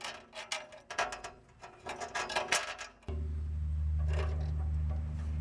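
Light clicks and metal rattles as a control cable and its hardware are handled against a lawn tractor's sheet-metal hood support. About three seconds in, the sound switches abruptly to a steady low hum.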